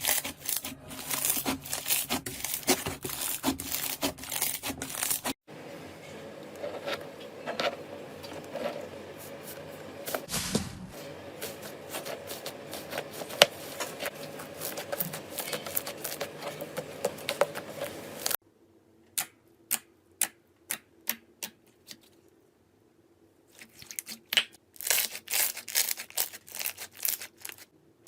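Slime being squeezed and pressed by hand, in several short clips: dense crackling clicks, then a softer stretch with scattered pops, then separate pops about two a second, then dense crackling again near the end.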